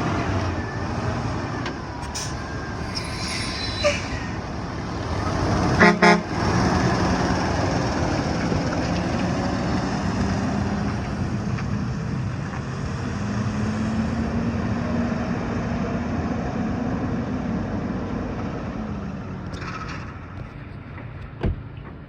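Front-load garbage truck running, its engine steady throughout, with a quick double honk of its horn about six seconds in.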